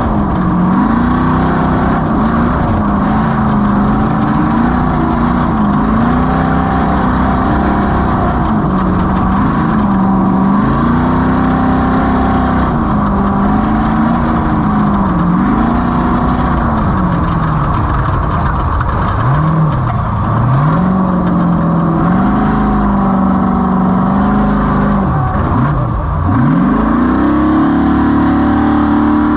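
Off-road race vehicle's engine running hard, revving up and down every second or two, with two deep drops in revs in the second half before it holds higher revs near the end. A steady rushing noise runs underneath.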